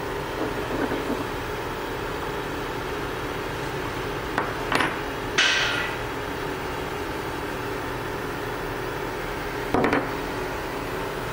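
Steady low hum, broken by a few sharp knocks about four and a half seconds in and again near ten seconds, with a brief rattling hiss just after the first knocks.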